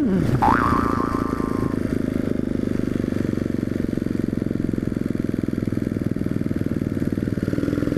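Freshly rebuilt Yamaha XT 250's single-cylinder engine running steadily at an easy cruise while being broken in. A brief tone rises, then holds, about half a second in.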